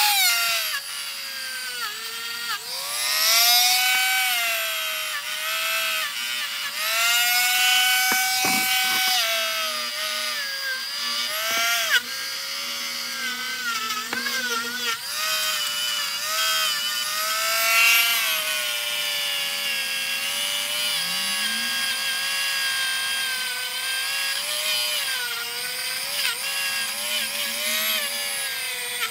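Dremel rotary tool running at high speed with a small wheel attachment pressed against a steel monkey wrench to clean it up. Its high whine runs throughout, dipping in pitch each time the wheel is bent against the metal and climbing again as it is eased off.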